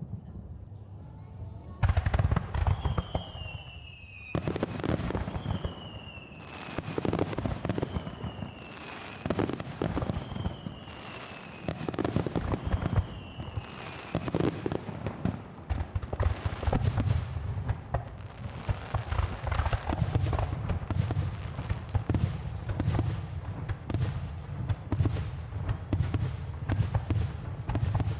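Aerial fireworks shells bursting overhead in quick succession, each bang followed by rumble and crackle. Five short falling whistles sound in the first half, and the bangs come faster and denser toward the end.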